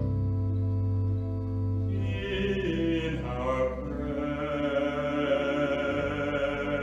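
Hymn with keyboard accompaniment: held chords, then a solo singer comes in about two seconds in and sings over the keyboard.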